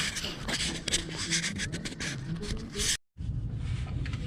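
Scraping and rubbing handling sounds, a quick run of short strokes, cut off abruptly about three seconds in, followed by a low steady rumble.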